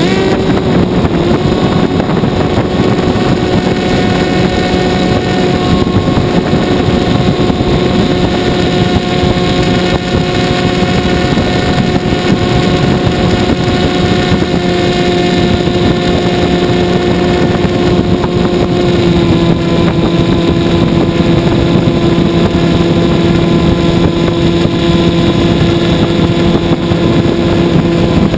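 Radio-controlled model plane's motor and propeller running at a steady pitch in flight, with wind rushing over the onboard microphone. The pitch drops slightly about two-thirds of the way through.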